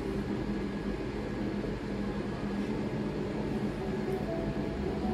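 Steady low hum and hiss of room noise.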